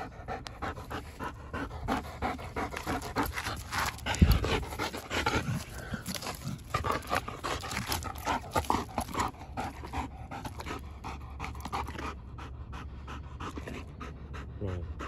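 German Shepherd panting hard and fast while tugging on a ball-on-rope toy, with a sharp thump about four seconds in.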